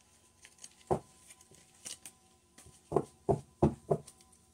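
Light knocks from a tarot card deck being handled on the table: one about a second in, then four quick knocks near the end.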